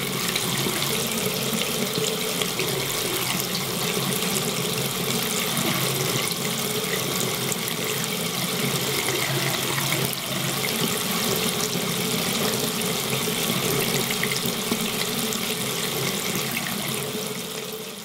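Water running steadily from a faucet into a sink, fading out near the end.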